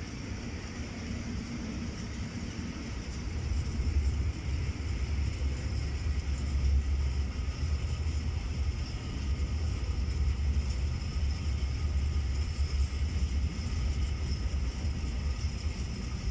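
Freight train of Eamnos open wagons rolling past behind a class 181 electric locomotive: a steady low rumble of wheels on the rails that grows louder a few seconds in.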